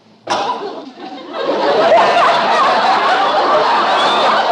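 A sudden loud noise about a third of a second in, then a studio audience laughing, swelling to a loud, sustained roar of laughter.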